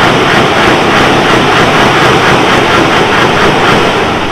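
A heavy lorry's engine and exhaust running loud as it pulls past, starting to fade near the end.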